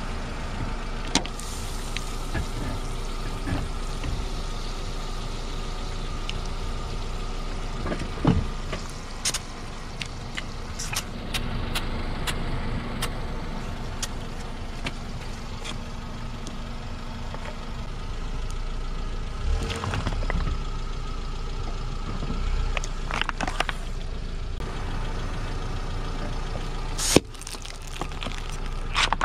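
Car engine idling while a tyre slowly rolls onto a plastic soda bottle and then a plastic highlighter, crushing them. Sharp cracks and pops of breaking plastic cut through the steady engine hum, the loudest about eight seconds in and another near the end.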